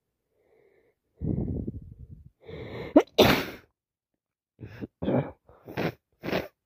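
A person with a summer cold sneezes once: a long drawn-in breath, a rising 'ah', then a loud sharp burst about three seconds in. A run of short sniffs follows near the end, about two or three a second.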